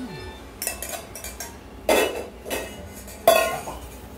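Steel saucepan and tea strainer clinking and clanking as they are handled and set down: a few light clinks, then louder metal knocks about two and three seconds in, the last one ringing briefly.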